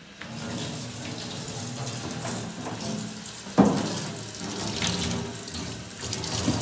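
Tap turned on and running into a stainless steel sink, water splashing over an ink roller held in the stream to clean it. A sharp knock sounds about halfway through.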